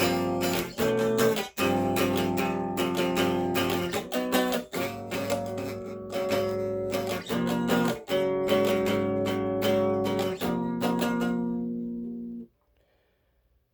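Acoustic guitar strumming chords in an instrumental passage, changing chord every few seconds; the last chord fades and stops about a second before the end.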